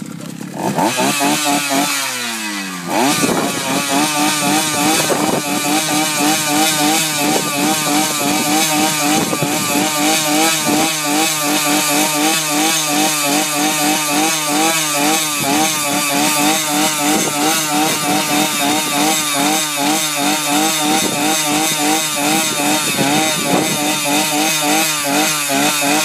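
A small engine running steadily with a wavering pitch; its pitch drops over the first couple of seconds, then it picks up about three seconds in and holds.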